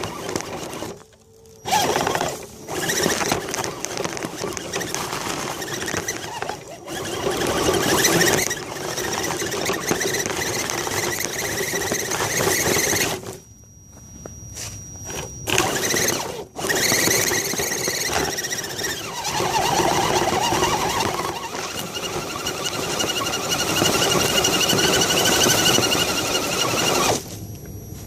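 Axial SCX10 RC crawler's electric motor and gears whining as it drives, the pitch rising and falling with the throttle. The whine drops out briefly about a second in and again for a few seconds midway, when the throttle is let off.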